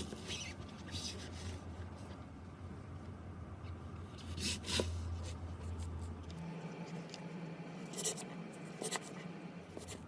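Slime being handled by hand: scattered short sticky clicks and crackles over a low steady background hum, which changes pitch about six and a half seconds in.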